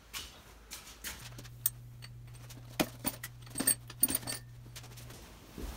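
Hand tools clinking and tapping against a Mopar flathead's cast-iron engine block during teardown: a string of sharp, irregular metallic clicks, with a low steady hum under the middle few seconds.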